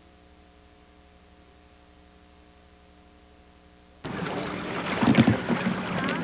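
A single click, then a faint steady electrical hum for about four seconds. The hum cuts off abruptly as loud wind buffeting the microphone and water noise cut in, typical of a jet-ski outing.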